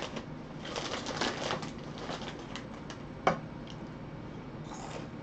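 Crunching of crispy broad-bean snacks being chewed, with crinkling of the snack bag. There is a quick cluster of crunches about a second in and one sharp, loud crunch a little after three seconds.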